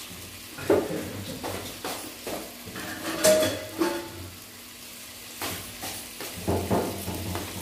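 Scattered kitchen clatter: knocks and clinks of a stainless steel bowl and utensils, with a brief metallic ring a little over three seconds in.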